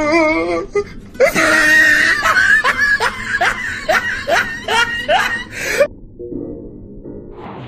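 Laughter: a wavering laughing voice, then about a second in a run of short rising laughing cries, about two to three a second, that cuts off suddenly near the end. Faint music follows.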